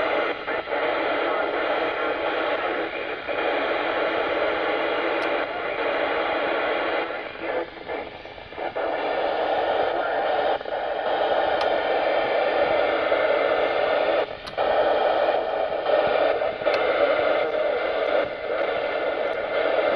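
FM receiver hiss from a Yaesu FT-847 transceiver's speaker, tuned to the BY70-1 CubeSat's FM transponder downlink with only a weak signal: a steady rushing noise that dips briefly twice.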